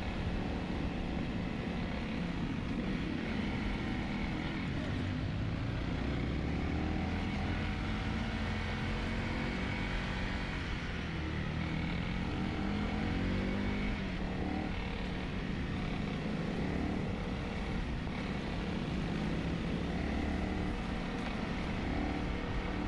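Dual-sport motorcycle engine running under way, its pitch rising and falling as the throttle changes, over a steady rush of tyre and wind noise from riding on gravel.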